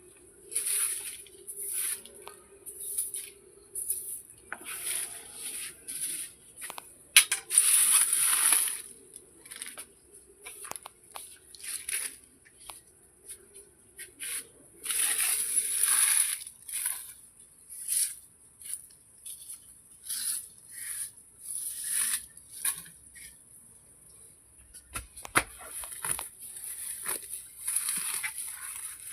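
Repeated brushing or scraping strokes, irregular at about one to two a second, with a few longer, louder strokes; a faint steady hum underlies the first half.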